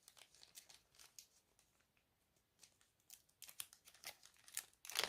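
Faint crinkling and rustling of small plastic packaging being handled, in scattered crackles and clicks that thin out in the middle and pick up again in the second half.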